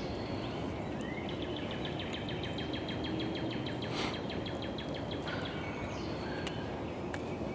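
Woodland birdsong: one bird sings a rapid, even trill lasting about four seconds, with other birds chirping around it over steady low background noise. A single sharp click about halfway through.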